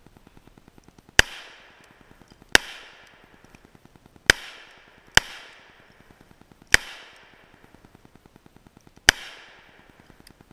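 Six shots from a Smith & Wesson Governor revolver, fired at an uneven pace over about eight seconds, each a sharp crack followed by a brief echo.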